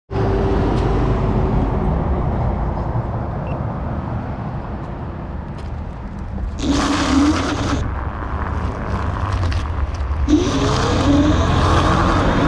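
Dualtron Thunder electric scooter riding on asphalt: steady tyre and road noise, with wind on the low-mounted camera. The hub motor's whine comes in about seven seconds in and again about ten seconds in, rising in pitch the second time as the scooter speeds up.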